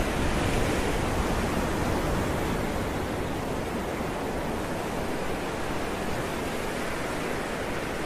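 Steady rushing noise of a ship's churning wake and wind at sea.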